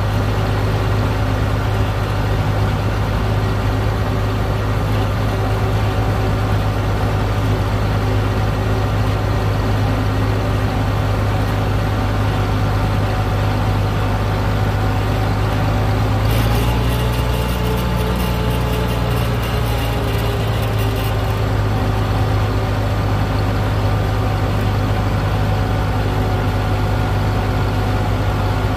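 Farm tractor engine running steadily at road speed, heard from the tractor, with a strong steady low hum. Past the middle, a second, higher engine note rises and falls for a few seconds.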